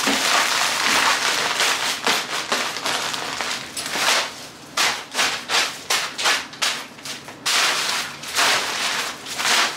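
Repeated rubbing and scraping strokes, about three a second in the middle, with two longer scrapes near the end.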